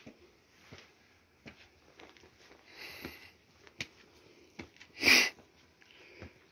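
Footsteps climbing wet stone steps, a soft knock with each step about every three-quarters of a second, with a sharp sniff about five seconds in.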